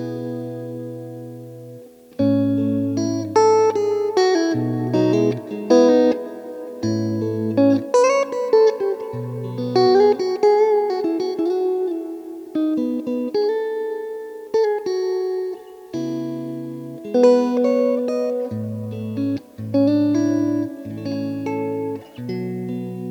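Guitar played through a Wampler Ethereal delay and reverb pedal: chords and single notes with ringing tails. A held note fades out over the first two seconds before the playing starts again.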